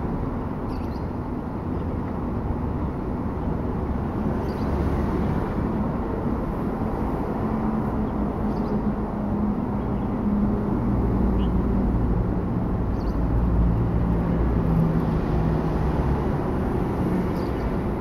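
Steady low engine rumble with a pitched hum, swelling slightly in loudness about halfway through.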